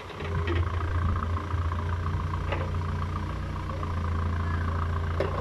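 Komatsu backhoe loader's diesel engine running steadily with a low hum, with a few short knocks over it.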